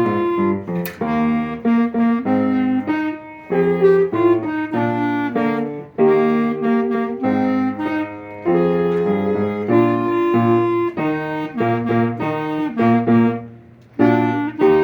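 Wind band music with clarinet, several instruments sounding together in short chordal phrases, closing on a final chord that dies away near the end.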